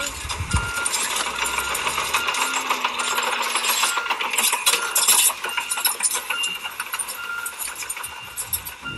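A toy Caterpillar crawler bulldozer's plastic tracks clattering and crackling as it moves, with an electronic beep repeating roughly every two-thirds of a second.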